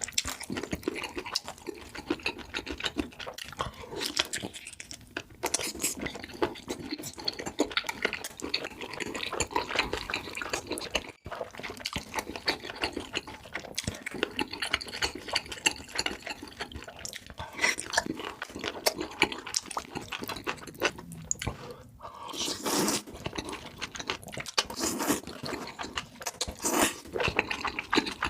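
Mouth sounds of eating, picked up close: wet chewing and smacking, made of many small clicks and crackles, with brief breaks about eleven and twenty-two seconds in.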